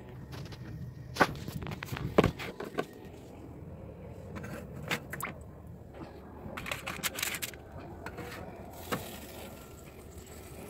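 Handling noise: scattered knocks, clicks and scrapes, the sharpest about two seconds in and a quick cluster around seven seconds.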